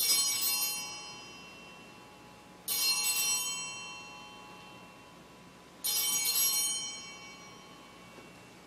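Altar bells rung three times, each ring bright and high with several tones, fading out over about a second and a half; they mark the elevation of the chalice at the consecration.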